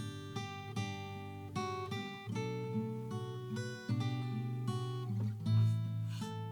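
Background music: acoustic guitar picking and strumming, with notes and chords changing about every second.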